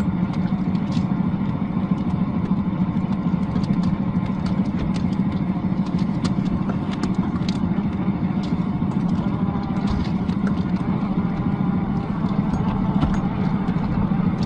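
Traxxas TRX-4 RC crawler's motor and drivetrain running with a steady hum as it crawls through shallow water, with scattered light ticks.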